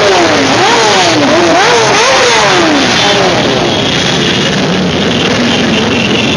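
A mass of motorcycles and scooters riding past, engines revved up and down again and again over the first few seconds, then settling into a dense, steady din of many engines.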